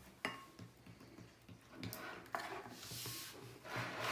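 Glue-and-borax slime being stirred in glass bowls with a plastic spoon and a stick, wet rubbing and scraping as the activator is mixed in. A sharp tap comes a quarter second in, and the stirring grows louder from about two seconds in.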